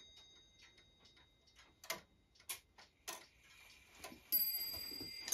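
Rack-and-snail striking clock movement ticking faintly, with a few louder clicks about two to three seconds in. About four seconds in, the hour strike begins with a ringing stroke as the minute hand reaches twelve, so the strike now comes on time.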